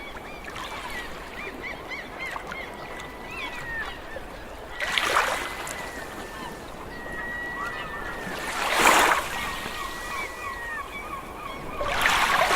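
A large flock of gulls calling continuously, with waves washing in three times, about every four seconds.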